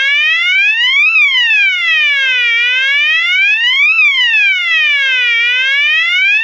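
Horn-strobe fire alarm, a knock-off of a System Sensor SpectrAlert, sounding its second tone: a slow siren wail that glides up and down in pitch, one full sweep about every three seconds. It is pretty loud, running on a 9-volt battery.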